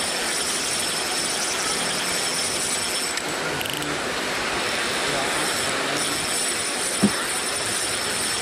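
Spinning reel being cranked to play a freshly hooked fish, over a steady rushing hiss; a single sharp knock about seven seconds in.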